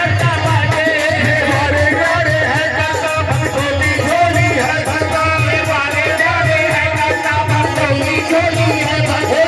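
Devotional folk music: a steady low drum beat under a wavering melody.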